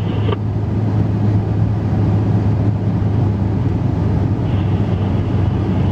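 Steady low drone of a Ford F-350 pickup driving in four-wheel drive, engine and road noise running evenly.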